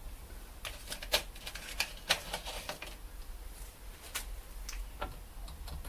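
Irregular small metallic clicks and taps of a screwdriver and screws as a carburettor choke unit is screwed back onto a Zenith Stromberg 150CDS carburettor, the loudest taps about one and two seconds in.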